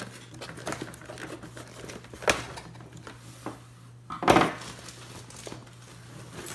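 Plastic packaging crinkling and being handled, with small clicks throughout, a sharp click about two seconds in and a louder rustle a couple of seconds later.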